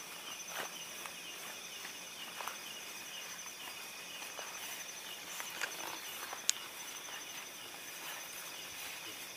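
Crickets and other night insects chirping in a steady, rapidly pulsing chorus, with scattered soft footfalls through grass and one sharp click about six and a half seconds in.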